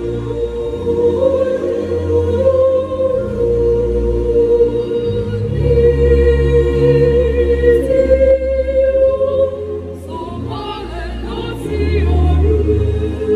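Mixed choir singing a Yoruba-language hymn in harmony, with held chords under a conductor. The volume dips about ten seconds in, then a higher wavering voice line comes in over the choir.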